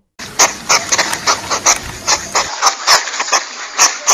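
Hedgehog sniffing and huffing in a quick, steady run of short breathy puffs, about three a second.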